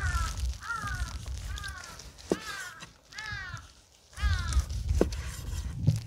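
A crow cawing about six times, each caw falling in pitch, over a low rumble, with a couple of sharp knocks near the end.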